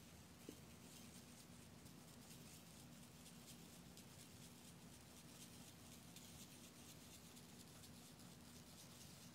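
Faint, rapid scratching and rustling of fingertips rubbing fine coloured sand onto a sticky sand-art board, over a steady low hum, with one small click about half a second in.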